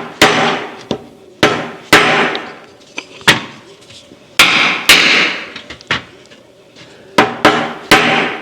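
A hammer striking a knife blade wedged into the seam of a Carter dual-action fuel pump, splitting the pump's two body halves apart. About a dozen sharp metal-on-metal strikes, irregularly spaced and often in quick pairs, each with a short ring.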